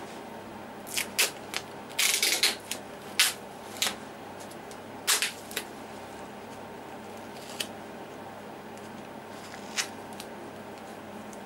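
A scatter of short, sharp clicks and taps, bunched in the first half with a couple more near the end, over a steady background hiss.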